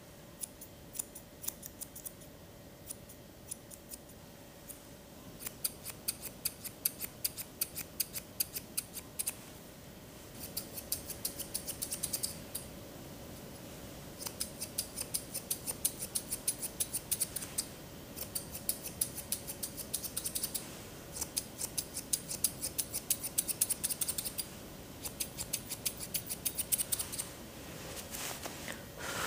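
Grooming scissors snipping through a poodle's fur around its face: scattered single snips at first, then quick runs of several snips a second with short pauses between them.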